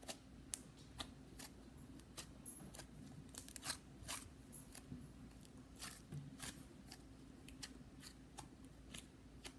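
Slime being squeezed and worked by hand: faint, irregular clicking and popping, a few small pops each second.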